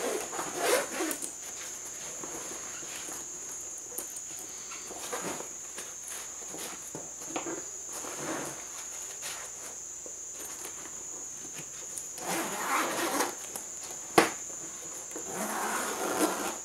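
Nylon backpack handled: short bursts of zipping and fabric rustling about a second in, a few times in the middle and again near the end, with one sharp click a little before the end, over a steady high-pitched whine.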